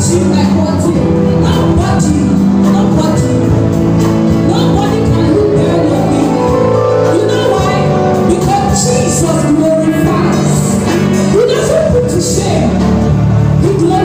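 Gospel worship song: singing over held chords of steady instrumental accompaniment.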